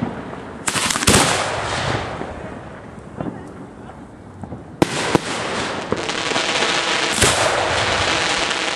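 Fireworks shells being fired from mortar racks at close range: four sharp bangs, each followed by a long rushing hiss. A fast run of small cracks comes near the end.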